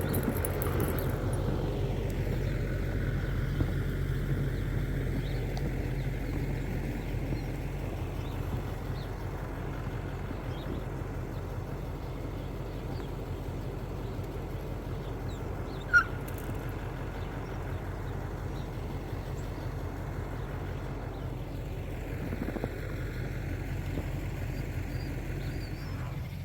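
Snow-plow truck's engine running steadily, a low drone with a faint rushing noise over it. A single sharp click comes about sixteen seconds in.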